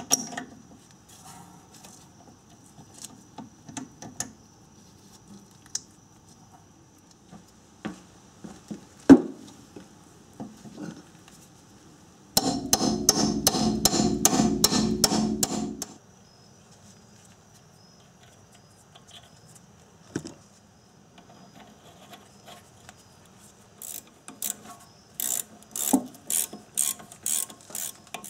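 Hand tools working on car brake parts: scattered metal clicks and knocks, one sharp knock about nine seconds in, then a few seconds of rapid, dense ratcheting. Near the end a ratchet wrench clicks in a run of quick strokes.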